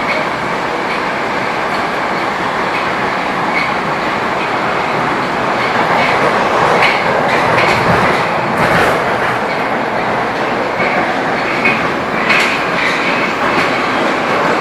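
Cabin running noise of a Metrowagonmash 81-775/776/777 "Moscow-2020" metro train moving through a tunnel: a steady rush and rumble of wheels on rails, with a few sharp clacks from the track. It grows slowly louder.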